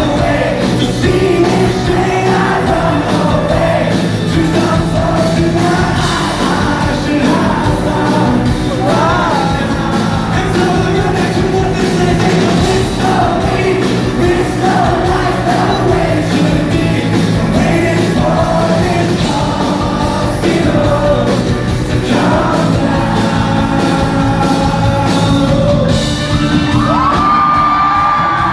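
Live pop-rock song: a male singer performing with a band, with the audience yelling and whooping along. A long high note is held near the end.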